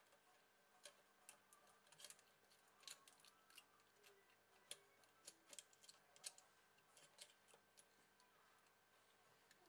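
Faint, irregular small clicks and taps of fingers handling an opened-up smartphone's circuit board and plastic frame, a few slightly louder clicks around the middle.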